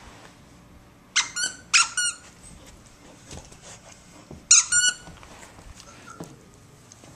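Squeaker inside a plush sheep toy squeaking as a golden retriever puppy bites down on it: two quick pairs of high squeaks about a second in, then another pair near the middle.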